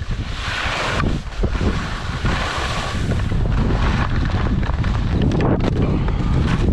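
Wind buffeting the microphone of a skier moving downhill, over the hiss and scrape of skis on packed snow, the scrape loudest about half a second in.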